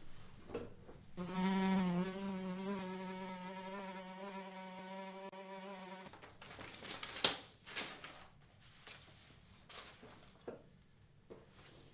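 A bluebottle fly buzzing close by for about five seconds, a steady drone that wavers slightly in pitch and cuts off suddenly. Then papers are shuffled and slapped about on a desk, with a sharp smack about seven seconds in and a few lighter knocks after it.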